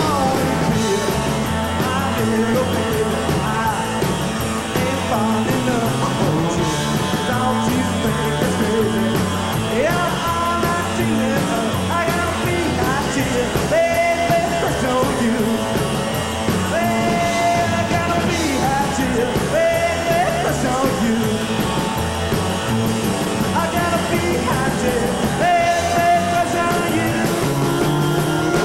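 Live rockabilly band playing a song: electric guitar, upright double bass and drum kit, with a lead part from the front man at the microphone.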